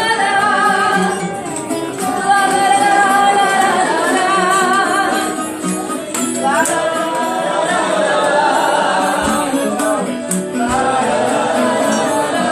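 Live fado: a woman singing with a wavering vibrato, accompanied by a Portuguese guitar and a classical guitar.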